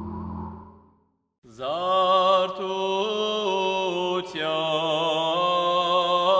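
A held tone fades out in the first second. After a brief silence, a single voice begins an Armenian liturgical chant, holding long notes that step up and down in pitch.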